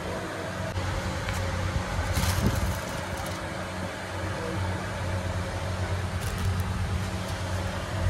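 Steady low mechanical hum under a haze of background noise, with a brief rustle about two seconds in and a few short clicks around six seconds.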